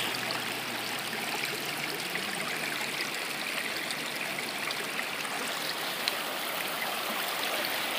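Shallow stream running over rocks and pebbles: a steady babble of flowing water.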